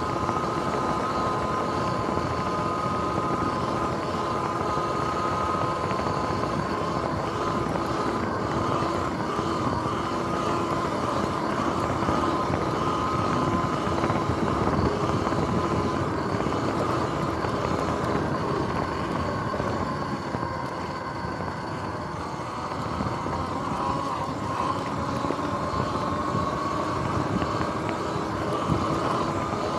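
Sur-Ron X electric dirt bike under way: a steady whine from its motor and drive over wind and tyre noise. About two-thirds through, the whine drops in pitch and the sound dips as the bike eases off, then picks up again.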